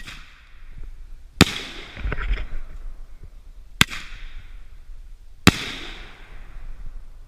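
Fireworks going off: four sharp bangs at irregular intervals, each with a short fading tail, and a brief faint crackle after the second bang.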